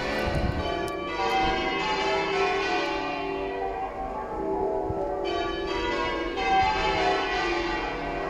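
A ring of church bells being change-rung half-muffled, the bells striking one after another in a continuous, even sequence. Half-muffling dulls one stroke of each bell while the other rings open, the traditional sign of mourning.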